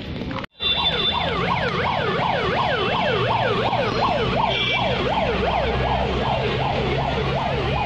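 Electronic siren in a fast yelp, its pitch rising and falling about three times a second, starting abruptly about half a second in over a low rumble.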